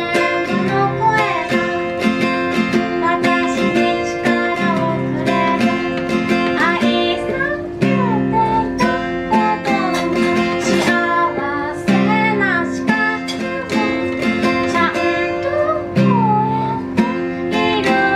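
A woman singing a slow song to her own strummed acoustic guitar, steady chords under the melody.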